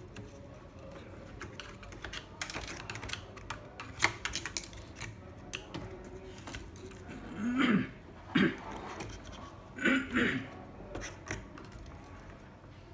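Irregular small clicks and taps, some in quick runs, with a few brief murmurs of a voice in the middle.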